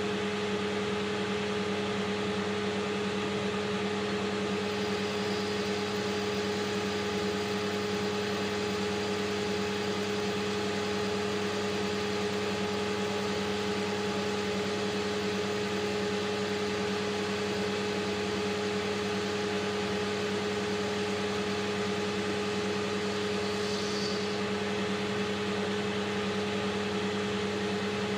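AL960B metal lathe running with a steady, even hum while taking a boring cut in a 4140 steel spindle housing. A faint high whine comes in about five seconds in.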